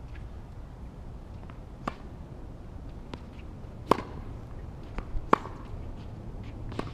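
Tennis rally heard from across the court: a tennis ball struck by rackets and bouncing on the court, making several sharp pops about a second or so apart. The two loudest come a little past the middle.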